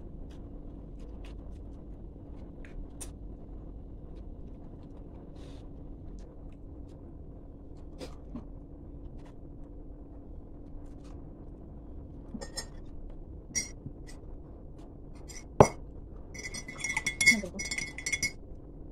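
Ceramic tableware clinking: a few light ringing clinks, one sharp knock, then a quick run of ringing clinks against the mug near the end. A steady low hum sits underneath.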